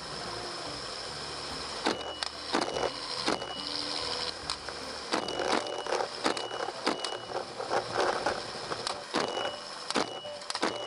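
A string of rifle shots fired from a helicopter at running hogs, a dozen or more at irregular spacing, sometimes two or three a second, over the steady noise of the helicopter and rushing wind.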